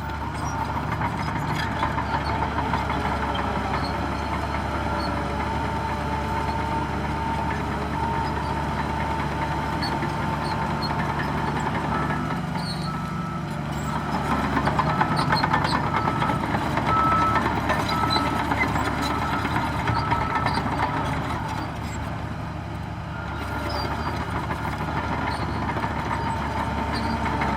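Heavy diesel engines of a Shantui bulldozer and Shacman dump trucks running at work, with a steady whine over the engine note. They grow louder for several seconds about halfway through, while a short high beep repeats.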